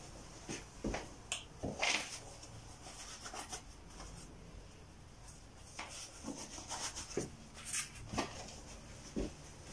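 Scattered light clicks, knocks and rustling of someone handling work gear such as gloves and a respirator, with no power tool running.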